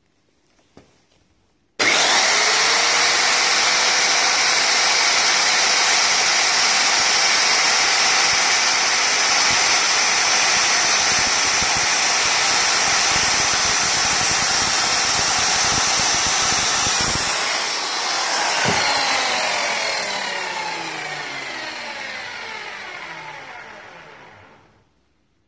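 Handheld circular saw switched on about two seconds in, its motor winding straight up to speed with a rising whine, then running at full speed for about fifteen seconds while it cuts a banana open lengthwise. The trigger is released and the motor and blade wind down with a falling whine, fading out just before the end.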